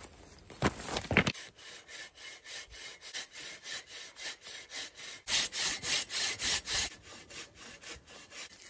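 Hand saw cutting through wood in quick, even back-and-forth strokes, about three a second, louder for a stretch past the middle. A few knocks come just before the sawing starts.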